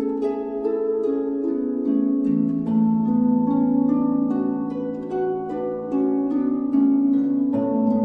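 Calm instrumental relaxation music: a stream of plucked notes over held low notes, with the low note changing twice.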